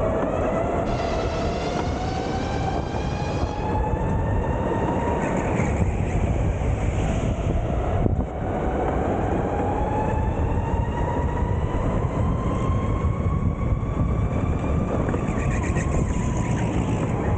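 Sodi electric go-kart running flat out on track: the electric motor's whine rises and falls in pitch with speed over a steady rough rumble of the kart at speed.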